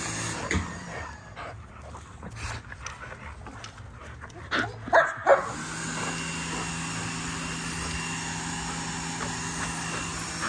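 American bully making dog noises while tugging on a rope toy, with three loud barks close together about five seconds in. Then a steady mechanical hum with a faint whine starts and carries on.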